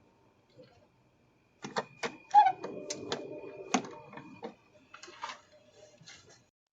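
A string of sharp clicks and knocks lasting about four and a half seconds, loudest near the start, with a faint steady high tone under the first half.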